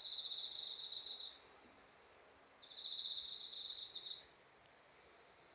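An insect singing: two high, pulsing trills of about a second and a half each, with a pause of about a second between them.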